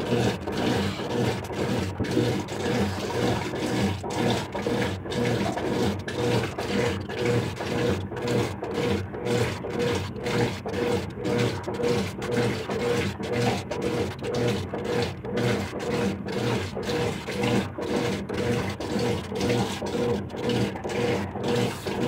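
Brastemp BWK12 top-loading washing machine agitating: the motor hums in pulses as the agitator reverses back and forth, churning the water and clothes in an even rhythm of about three strokes every two seconds.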